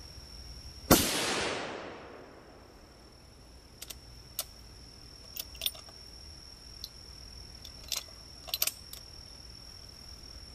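A single rifle shot from a bolt-action precision rifle fired from the prone position, about a second in, its report trailing off over about a second. A few seconds later comes a run of sharp metallic clicks as the bolt is worked to cycle the rifle for the next shot.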